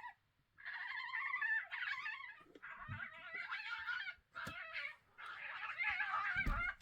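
Two Eurasian badgers fighting: bouts of shrill, wavering squeals and screams lasting a second or two each, broken by short pauses, with a couple of brief low thumps.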